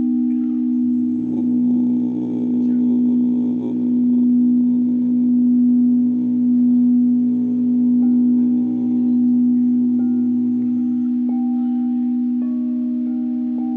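Quartz crystal singing bowls ringing: a low bowl tone holds steady throughout, swelling and fading every second or two, and higher bowl tones come in near the end. From about a second in until about eleven seconds, a low droning hum with many overtones sounds beneath it.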